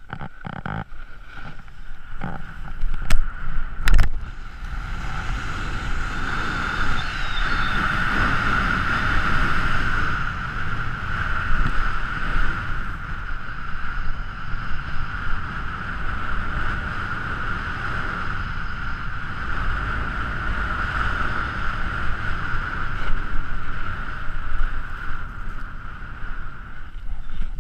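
Wind rushing over an action camera's microphone while riding fast down a groomed ski run, mixed with the hiss of sliding over packed snow. Two sharp knocks come about three and four seconds in.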